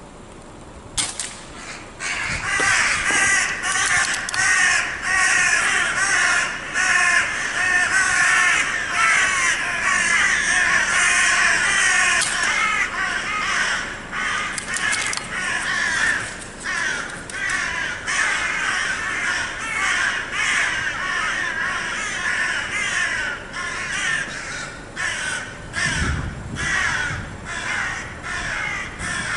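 Crows cawing almost without a break, many calls overlapping, beginning about a second in.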